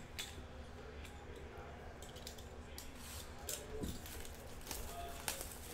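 Hands handling a sealed trading-card hobby box, with faint crinkling of its plastic wrap and a few light clicks and taps as it is worked open with a small metal tool.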